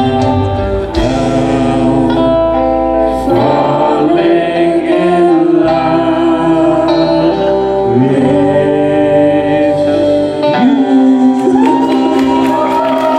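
Background music with singing: a sustained, choir-like vocal song over instruments.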